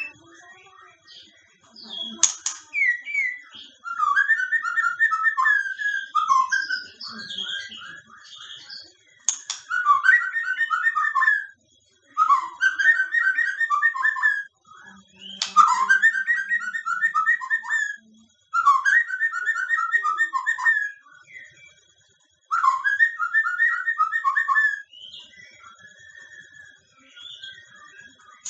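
Caged white-rumped shama (murai batu) singing: loud, clear whistled phrases about two seconds long, repeated roughly every three seconds with short pauses between.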